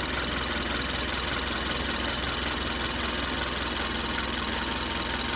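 2013 Kia 1.6 L direct-injection four-cylinder engine idling steadily, with the fast, even clicking of its direct injectors. The engine knock has been cured by removing engine sludge.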